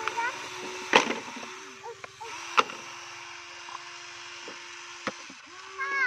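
Sharp knocks of hard plastic toys set down on wood, loudest about a second in and again after two and a half seconds, with a steady hum through the middle and a few short high chirps.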